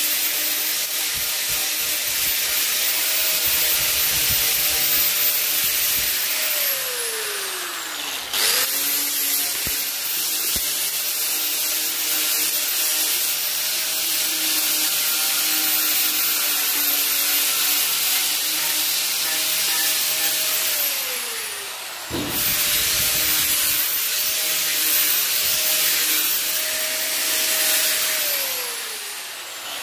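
Small high-speed electric power tool running against plastic, trimming and cleaning away the excess original plastic of a headlight part. Its motor whine winds down three times as it is switched off, and it starts up again after the first two.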